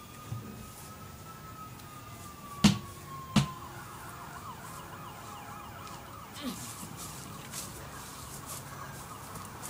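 A siren wails in a slow rise and fall, then switches to a fast warbling yelp a few seconds in. Two loud knocks come about a second apart partway through.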